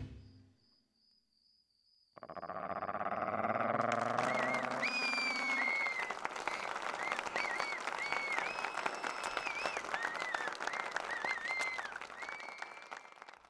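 Applause starts about two seconds in, with high squeaky chirping calls rising and falling over the clapping, and dies away near the end.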